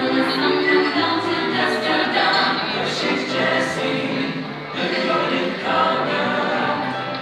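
A song with a group of voices singing together over instrumental backing music, the soundtrack of a Woody and Jessie puppet show.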